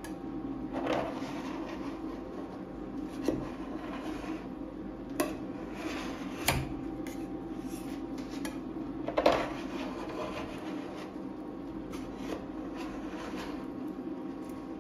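Metal scraper scraping thin frozen ice cream across a chilled steel plate as it curls it into rolls, with sharp clicks of the blade striking the plate, the loudest about nine seconds in. A steady low hum runs underneath.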